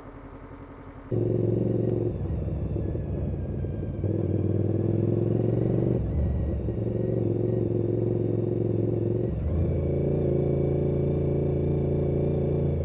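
Motorcycle engine pulling away about a second in and accelerating, its note rising steadily and dropping back at each gear change, four times.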